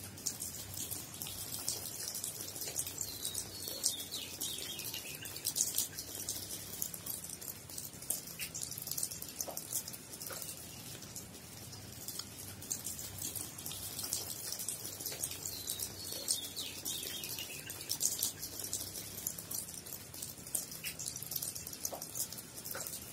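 Steady rain falling, a dense patter of many small drop ticks.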